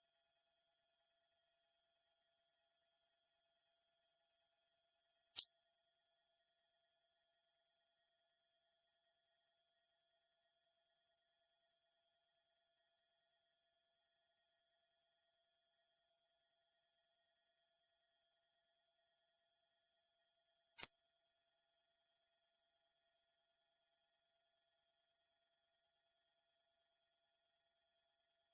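Dog whistle sound effect: one continuous, very loud, high-pitched tone held at a single steady pitch, with a faint click about 5 seconds in and another about 21 seconds in.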